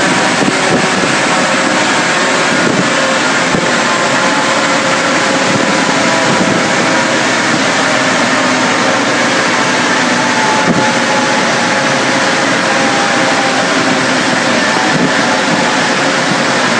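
Ford Escort RS2000's 2.0-litre 16-valve four-cylinder engine, breathing through GSXR motorcycle individual throttle bodies, running loud and held at steady revs on a rolling road dyno, exhaust and rollers together. The pitch stays level throughout.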